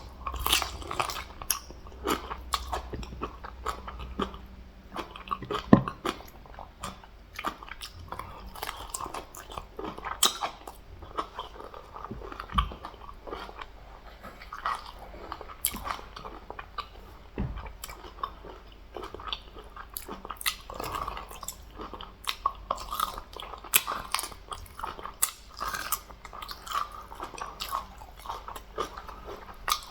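A person chewing and biting close to the microphone, eating fufu with egusi soup, fish and meat: continuous irregular chewing with many sharp mouth clicks and smacks.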